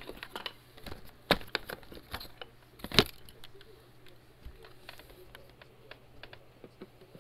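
Scattered sharp plastic clicks and knocks as a switched-off Shark Navigator upright vacuum is handled and moved, with two louder knocks about a second and three seconds in.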